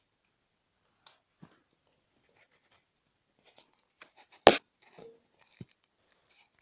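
Scattered faint ticks and clicks, then one loud sharp knock a little past halfway with a brief ring after it, and a smaller knock about a second later: the unexplained knocking in a home heating system.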